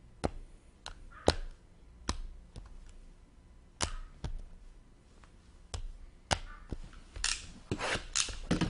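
Hockey card boxes and cards being handled on a table: irregular sharp clicks and taps, about one or two a second, with brief rustling about seven seconds in.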